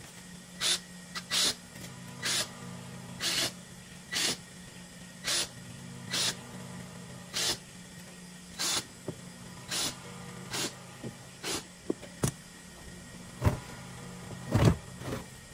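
Repeated short hissing bursts, roughly one a second, from a handheld power tool working on foam padding on a wooden sofa frame, over a steady low hum, with a couple of heavier thumps near the end.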